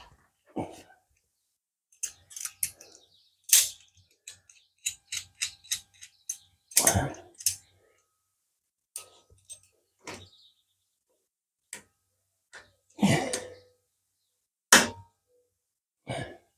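Metal tool clinks and clicks as locking pliers (Vise-Grips) are handled and clamped onto a part on a small engine's cylinder head: irregular light taps with a brief metallic ring, a quick run of ticks about five seconds in, and a few louder knocks.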